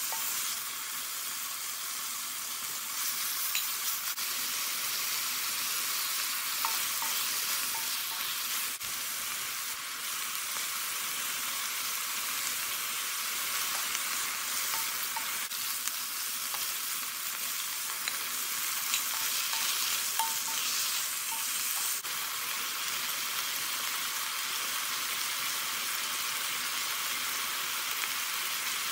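Chicken thigh pieces and diced red onion sizzling in a hot wok as they are stirred with a wooden spatula: a steady frying hiss with scattered small pops.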